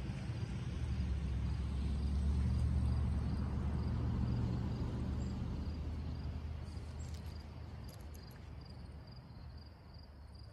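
A distant engine's low rumble that swells over the first few seconds and then slowly fades away, with an insect chirping steadily and faintly at about two chirps a second.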